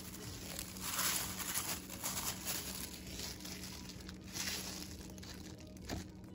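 Diced red onion tipped from a bowl into a glass mixing bowl of chopped vegetables, the pieces rustling and pattering down, loudest about a second in. A short knock near the end.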